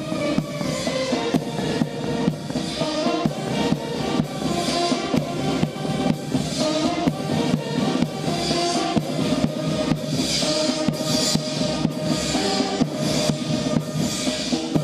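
Military brass band playing a march, brass melody over a steady beat of bass and snare drums.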